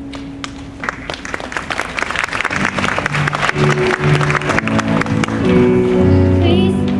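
Clapping and applause over music, with the low notes of a song's instrumental intro coming in about halfway through and growing louder.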